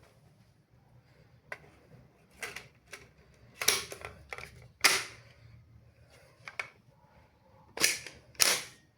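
Toy break-action shotgun dart blaster being handled and fired: a series of sharp plastic clicks and snaps as it is broken open, loaded and shut, and spring-powered shots. The loudest snaps come about five seconds in and twice near the end.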